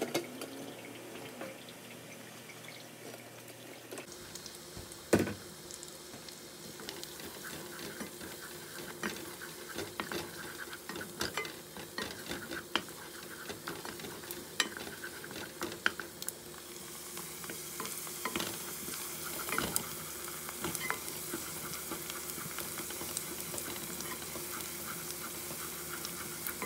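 Food sizzling in a pan while a utensil stirs and scrapes against it, with many sharp clicks and one louder knock about five seconds in. The sizzle grows louder over the last third.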